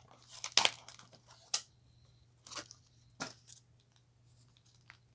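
Mail packaging being torn and crinkled by hand as a package is opened to get a card out: a few short rips and crackles over the first three seconds or so.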